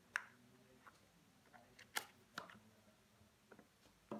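Handling noise as a phone's box and accessories are unpacked: a few short, sharp clicks and taps of cardboard and a plastic charger being lifted out, five or so in all, the loudest near the start and about two seconds in.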